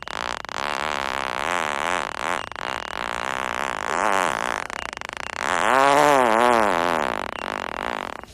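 A man farting: a long run of pitched, wavering farts in several stretches, the loudest a little past halfway through.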